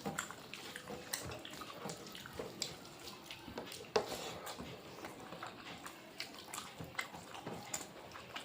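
Quiet wet eating sounds, mouths chewing and food being handled, with scattered small clicks and a sharper tap about four seconds in.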